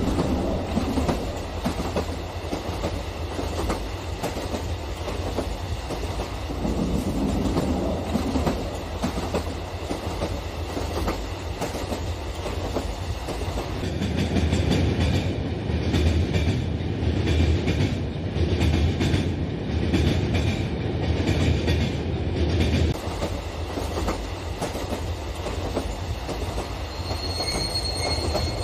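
Model train running along its track: a steady rumble and clatter of wheels, louder in the middle.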